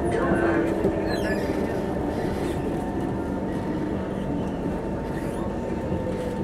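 Singapore MRT train heard from inside the carriage while running: a steady rumble from the wheels on the track with a constant hum and faint tones that dip slightly in pitch.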